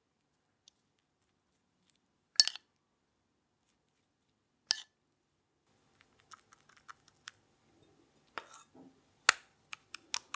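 A metal spoon clinking sharply against a bowl as jam is scooped and spread, twice in the first five seconds. Then come lighter ticks and soft handling sounds, with two more sharp clinks near the end.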